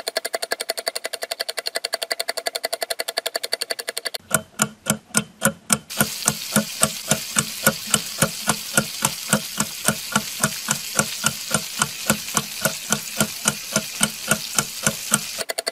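Percussive background music track: a fast even ticking beat that switches about four seconds in to a slower beat of roughly four deep thumps a second, with a hissing layer joining a couple of seconds later, and returns to the fast ticking near the end.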